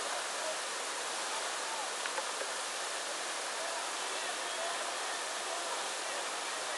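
Whitewater rapids rushing: a steady, even rush of churning river water with no breaks.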